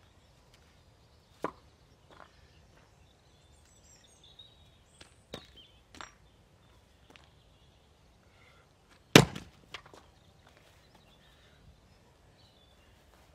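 An axe splitting a log on a chopping block: one sharp, loud crack about nine seconds in, followed by a lighter knock. Before it come a few softer wooden knocks as split firewood pieces are handled and set down.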